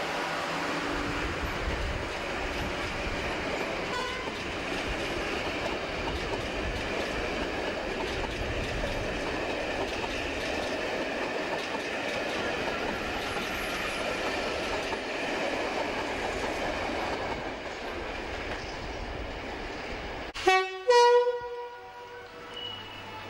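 A British Rail Class 85 electric locomotive and its coaches running past, a steady rumble of wheels on rail that eases off near the end. Then, after a cut, a locomotive horn gives two short blasts, the second a little higher.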